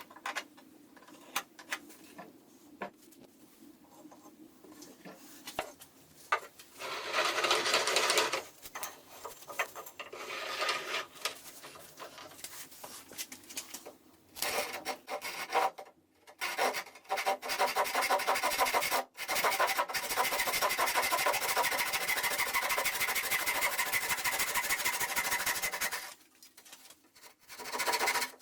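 Wood being worked with a tool: a few light handling clicks, then two short bursts of rasping, then a long steady run of a machine working the wood that stops shortly before the end.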